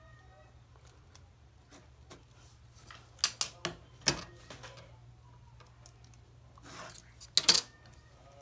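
A long tailor's ruler handled on a worktable: a few sharp clacks about three seconds in, then a rustle of paper and more clacks near the end as it is laid down. A low steady hum runs underneath.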